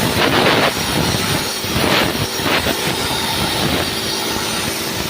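Loud, steady rushing noise with irregular scraping, from a tool cleaning a dirty area of the fuel tank.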